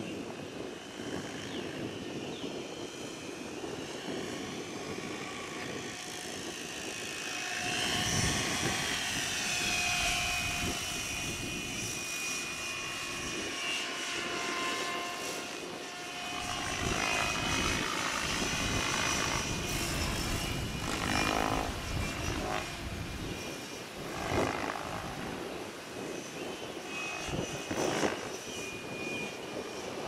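Align T-Rex 760 electric RC helicopter in flight: a whining motor and rotor tone that rises and falls in pitch as it manoeuvres, with gusts of wind rumbling on the microphone.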